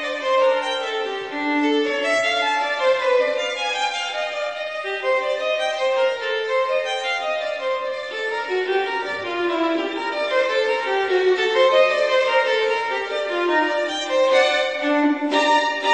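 Background music: a violin-led melody played continuously, the notes moving up and down in a flowing line.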